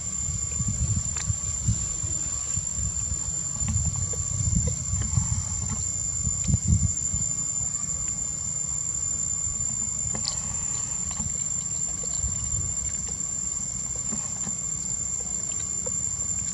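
Steady, high-pitched insect drone with one unbroken tone, over an irregular low rumble that swells a few seconds in.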